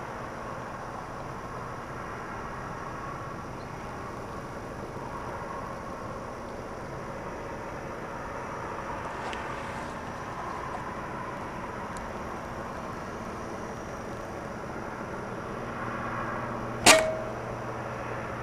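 A single air rifle shot near the end, one sharp report with a short ring, over a steady faint hum and hiss.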